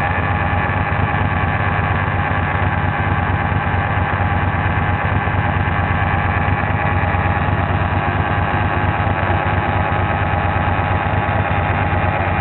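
Liquid-cooled motorcycle engine idling steadily, with a noise the owner finds strange and has not yet traced: not cured by checking the radiator coolant or the engine mounting nuts.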